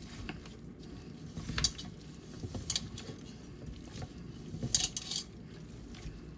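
Chicken pieces being worked by gloved hands in a bowl as seasoning is rubbed in: a low wet shuffling, with a few sharp clinks and knocks against the bowl.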